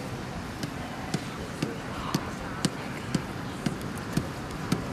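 Regular ticking, about two sharp clicks a second, each with a short low knock, over a steady hiss.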